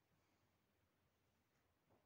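Near silence: faint room tone, with one soft brief sound near the end.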